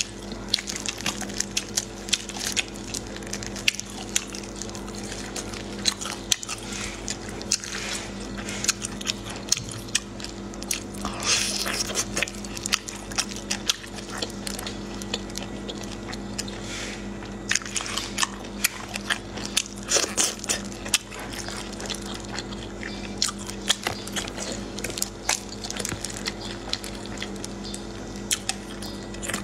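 Close-miked eating of cooked shellfish in sauce: wet chewing, sucking and sharp clicks as the meat is pulled from the shells and eaten. A steady low hum runs underneath.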